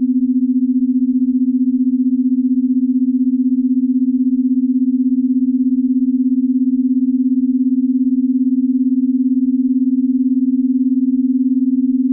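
A steady, low electronic pure tone from a binaural-beat sleep track, holding one pitch and wavering quickly and evenly in loudness.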